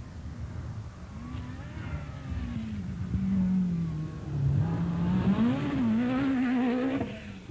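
Lancia Delta S4 Group B rally car's turbocharged and supercharged four-cylinder engine revving hard on a gravel stage, its pitch rising and falling with throttle and gear changes. It grows louder about halfway through as the car slides close by, then stops abruptly near the end.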